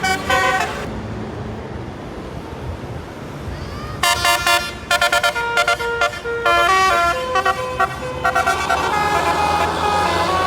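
Basuri telolet multi-tone bus horn playing a quick melody of short tooting notes over the bus engine running. The horn falls silent about a second in and starts up again about four seconds in.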